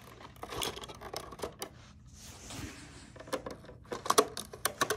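Hard plastic parts of a Hess toy plane clicking and knocking as it is handled and opened, with a quick cluster of sharp clicks near the end.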